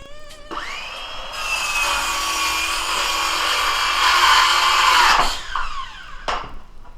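Circular saw spinning up and cutting a pine floorboard for about four seconds, then winding down with a falling whine.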